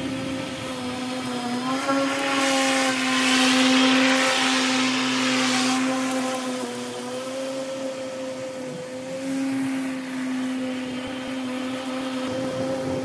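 Greenworks 80V battery lawn mower running with its blade spinning: a steady electric motor whine, with a louder rushing hiss from about two seconds in until about six seconds.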